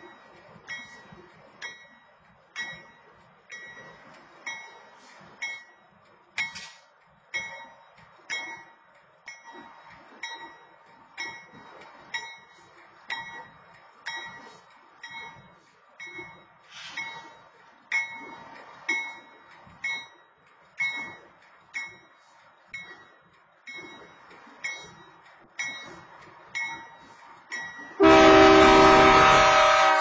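Railroad crossing warning bell ringing steadily, about one strike a second, as the crossing signal is active. About two seconds before the end, a loud train horn starts one long blast that drowns out the bell.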